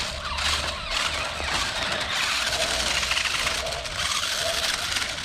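Toy remote-control monster trucks running on a gritty dirt path: their small electric motors whine with a wavering pitch, and their tyres scrabble on the grit.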